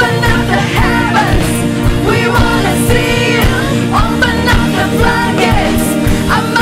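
Live contemporary worship song: a woman singing lead with backing singers, over acoustic guitar, keyboard and a steady beat.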